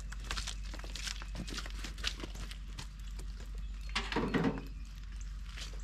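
Irregular light knocks and clicks of small gear being picked up and handled, with a short louder burst of noise about four seconds in.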